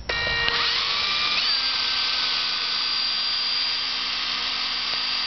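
Electric drill starting up and drilling into a broken laptop LCD screen: its motor whine rises in pitch over the first second and a half, then runs steady and high.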